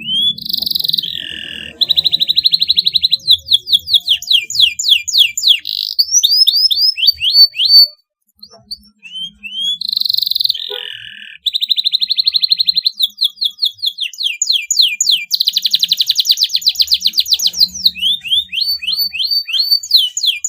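Domestic canary singing a long, loud song of fast buzzy trills and runs of rapid rising whistled sweeps, broken by a short pause about eight seconds in before the song resumes.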